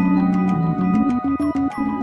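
Lofi music: a bell-like mallet melody over a low repeating bass line and quick regular percussion ticks.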